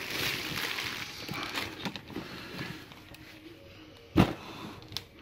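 Rustling of paper and a fabric tote bag being rummaged through, with scattered light clicks and one dull thump about four seconds in.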